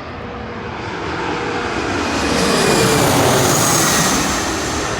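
Jet airliner passing low overhead: a roar that builds, peaks about three seconds in and then fades, with a high whine that drops slightly in pitch as it goes over.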